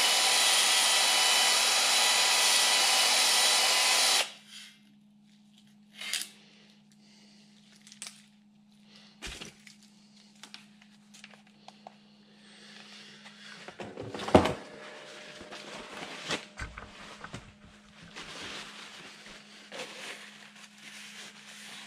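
Drill-driven cylinder hone spinning in the oiled bore of an excavator track adjuster cylinder, taking the rust off the seal seat; it runs steadily and stops abruptly about four seconds in. Then quieter metal handling: scattered knocks and clicks, one sharp loud knock midway, and rubbing.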